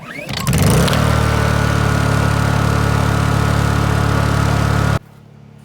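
A motor spins up over about the first second and runs loud and steady, then cuts off abruptly near the end, leaving a quieter steady hum.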